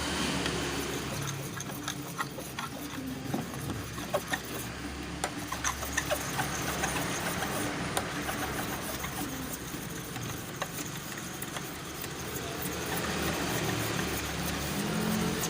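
A piece of glass scraping the plastic lens of a car headlamp, with many short scratches and clicks, to strip off yellowed, mouldy oxidation. A steady low hum runs underneath.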